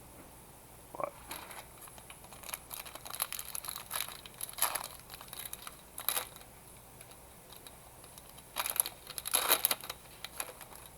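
Plastic trading-card pack wrapper crinkling and being torn open, with the cards rustling as they are handled, in irregular bursts.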